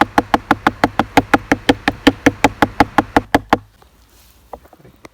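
Knife rapidly chopping beef into mince on a cutting board, even strokes at about seven a second, stopping about three and a half seconds in, followed by a couple of light taps.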